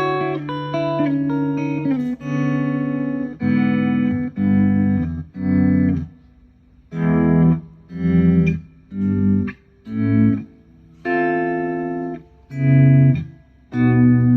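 Electric guitar played through a Boss SG-1 Slow Gear pedal that is switched on, so each chord swells in with little pick attack. It starts with a held chord, then comes a run of short separate chords and notes with brief gaps between them.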